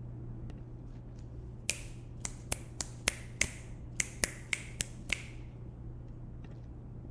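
Fingers snapping about eleven times in quick succession, in two short runs with a brief pause between them, over a steady low hum.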